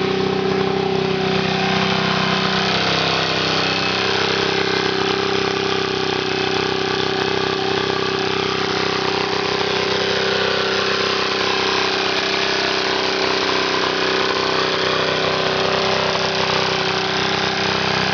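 Model V-twin steam engine running fast and steady, on test at high speed near 4000 rpm. Its rapid exhaust beats blend into a continuous hum, under a steady rushing hiss of steam.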